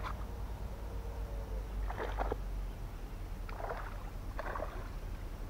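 Steady wind noise on the microphone, with three short splashes about two, three and a half and four and a half seconds in: a hooked cará thrashing at the water's surface as the bamboo pole lifts it.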